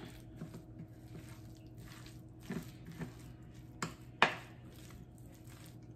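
A spoon stirring chicken salad with mayonnaise in a glass bowl: soft wet squishing with a few light knocks of the spoon against the bowl, the sharpest about four seconds in.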